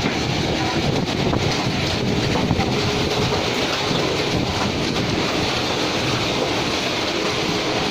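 Automatic wall-plastering machine running steadily, a continuous mechanical noise with a faint steady hum under it.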